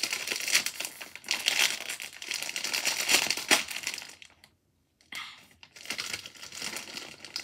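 Plastic snack bag crinkling as it is folded and squeezed in the hands, with a brief pause a little after the middle before the crinkling starts again.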